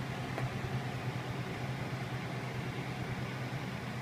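Steady low hum with an even hiss over it, running unchanged: constant kitchen background noise by the stove.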